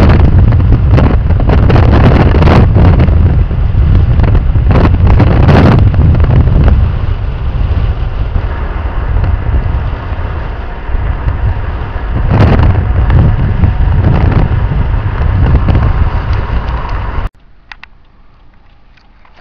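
Heavy wind buffeting on the microphone and road rumble from a moving car. It eases for a few seconds in the middle, builds again, then cuts off abruptly near the end, leaving a quiet background.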